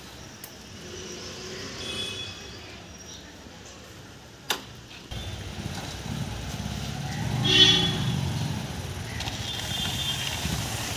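Small single-cylinder commuter motorcycle engine running as the bike rides slowly up, a steady low rumble starting suddenly about halfway through. A brief louder high-pitched sound stands out a little later.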